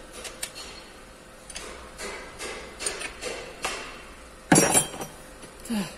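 Metal tools and parts clinking and knocking in a repair shop, a light irregular tapping of about a dozen small strikes, with one loud ringing metal clank about four and a half seconds in.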